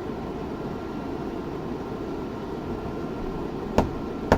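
Steady low rumbling hum with a faint high tone above it. Two sharp clicks come about half a second apart near the end.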